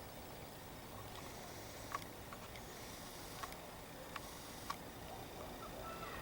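Four faint, sharp clicks spread over a few seconds against a quiet background hiss.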